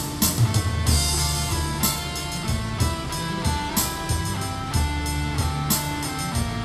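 Electronic arranger keyboard playing a song with its auto-accompaniment: a steady drum-kit beat, a bass line and guitar-like parts under held melody notes.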